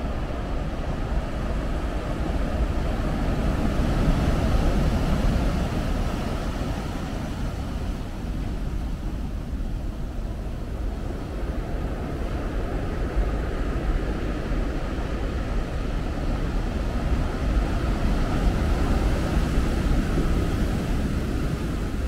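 Rough Atlantic surf breaking against a rocky shore: a steady wash of noise with a deep rumble, swelling louder about four seconds in and again near the end.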